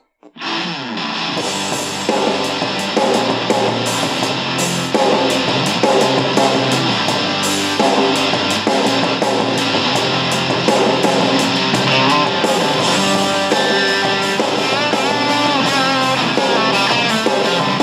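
Rock music with electric guitar playing from the Sangean ATS-909X2 portable radio's speaker, received on FM stereo from a low-power transmitter on the same frequency, with the tone control set to 'music'. The track starts just after a brief break at the very beginning.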